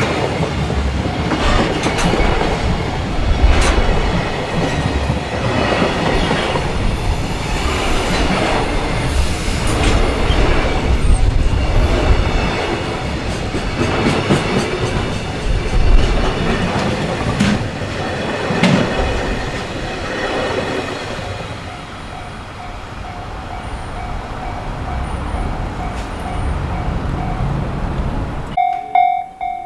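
Freight train wagons rolling past, the wheels clacking over rail joints about once a second. The rumble dies down about two-thirds of the way through, and a level crossing warning bell rings, louder near the end.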